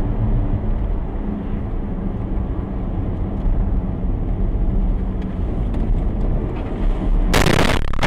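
A car driving, with a steady low rumble of engine and road noise. Near the end comes a loud, sudden burst of noise lasting under a second.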